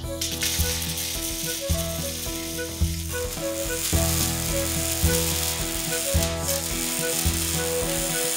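Electric arc welding on metal: a steady hiss of the arc as it is struck and dragged along the seam, starting at once and cutting off near the end. Background music plays underneath.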